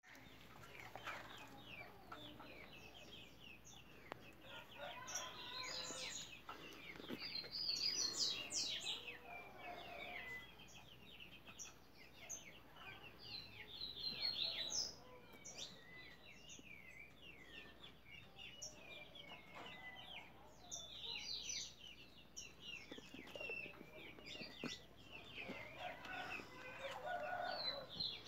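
Chickens clucking and small birds chirping in many short, quick calls scattered throughout.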